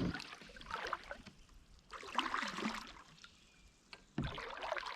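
Light water trickling and small splashes around a kayak, with scattered small knocks and clicks.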